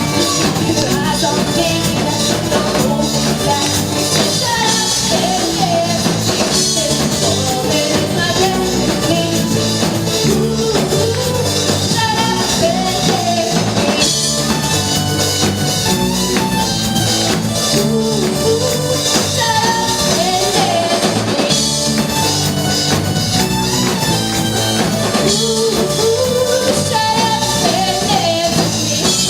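Live rock band playing, with a drum kit and a sung vocal line over the band.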